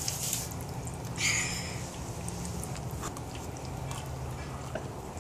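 Sipping and swallowing homemade root beer from plastic cups: two short breathy slurps in the first two seconds, then a few faint mouth clicks over a steady low hum.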